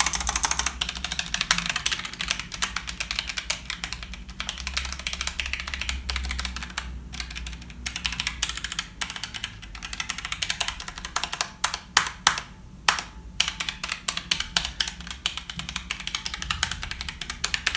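Fast, continuous typing on a low-profile mechanical keyboard with brown (tactile) switches, the Hexgears X-1: a dense run of key clicks, with a few louder single keystrokes about two thirds of the way through.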